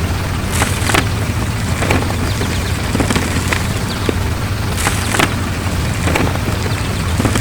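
A heavy construction vehicle's engine rumbling steadily, with short sharp knocks about once or twice a second.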